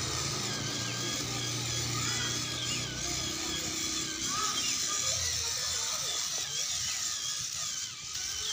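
Electric motor and gearbox of a scale RC crawler whining at a low, steady pitch as it creeps over rocks, dying away after about three seconds. Short high chirps and a steady high hiss run underneath.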